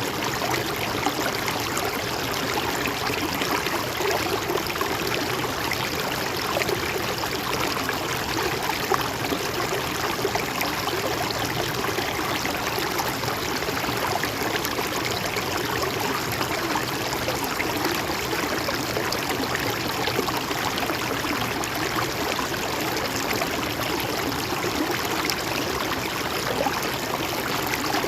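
Mountain stream flowing steadily over rocks, with a constant rush and trickle.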